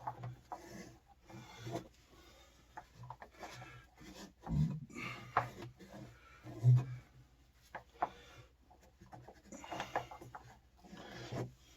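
Threads of an electric water heater's element opening being scrubbed clean by hand: irregular rubbing, rasping strokes, with a couple of dull knocks around the middle.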